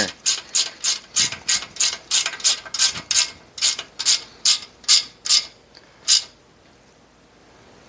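Ratcheting wrench clicking in quick, even strokes, about three clicks a second, as a bolt is run in by hand. The clicking stops about six seconds in.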